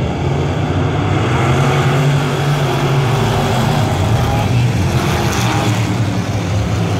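A field of pure stock dirt-track race cars running at speed, their engines blending into a steady loud drone as the pack goes around the oval.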